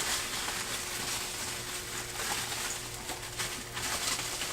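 Rustling and handling of packaging as an item is unwrapped from a subscription box, with a steady low electrical hum underneath.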